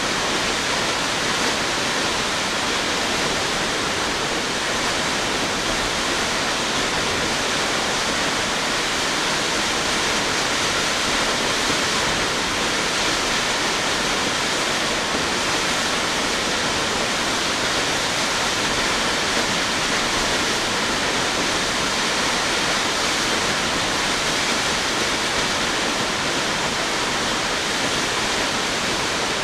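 Steady, unbroken rushing of South Falls, a 177-foot waterfall, pouring into its plunge pool.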